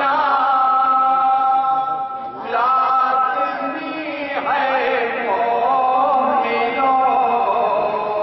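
Several men chanting a naat together in long, held sung phrases, with short breaks between phrases about two and a half and four and a half seconds in.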